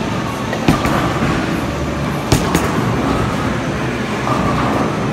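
Bowling alley noise: the steady low rolling of bowling balls on the lanes, with several sharp clacks of pins being struck, the loudest about two seconds in.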